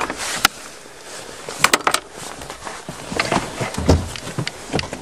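Handling noises in a car's cabin: scattered sharp clicks and knocks with rustling as a gloved hand works around the steering column and ignition, and a dull thump about four seconds in. The engine is not running.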